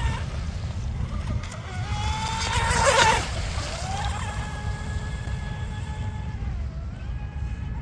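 Battery-powered RC Mini Mono monohull speedboat running at speed: its motor and propeller whine rises in pitch and peaks about three seconds in, with a rush of spray as it turns close by, then holds a steady pitch as it runs away. Wind rumbles on the microphone throughout.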